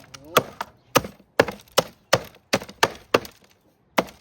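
Rapid sharp cracking blows, about nine in four seconds, as the broken plastic remains of a Goldair fan heater are smashed. The last blow falls near the end.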